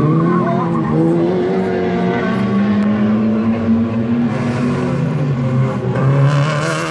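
A racing car's engine revving hard on a street circuit, its pitch climbing and dropping several times as it accelerates and lifts through the corner. A hissy, higher sound joins in from about four seconds in, likely tyre squeal.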